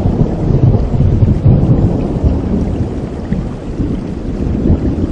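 Thunder rumbling over steady rain, the rumble loudest in the first couple of seconds and easing off toward the end.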